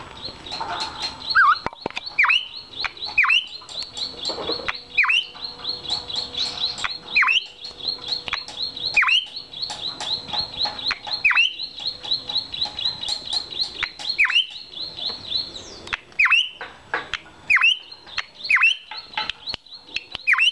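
Drongo calling: loud, sharp whistles that fall steeply in pitch, repeated every second or two over a fast run of high chirps.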